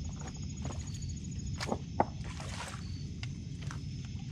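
Footsteps and shuffling on riprap rock while a catfish is reeled in on a bent rod, with scattered clicks and one sharp knock about two seconds in. A steady high chirping runs underneath.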